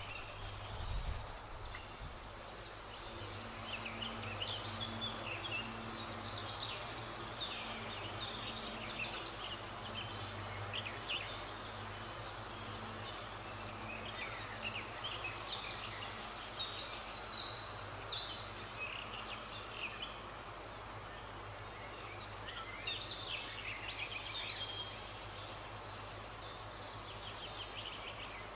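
Woodland birdsong: several small birds singing and calling at a distance in many short, high chirps and phrases, over a low steady hum.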